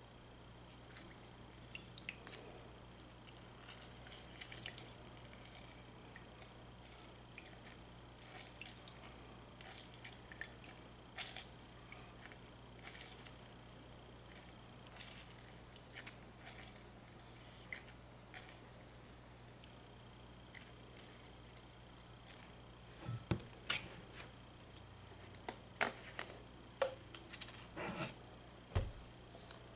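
Lemon halves being squeezed by hand over a glass measuring cup: many short wet squishes of the pulp, with juice dripping into the glass. Near the end come a few louder knocks and a single deep thump.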